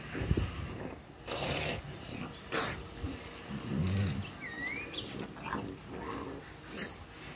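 Two pit bull-type dogs wrestling on gravel: low growls, snarls and rough breathing, with scuffling of paws and bodies.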